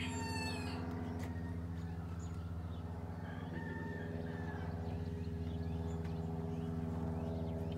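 A rooster crowing, its call dying away within the first second, over a steady low machine hum.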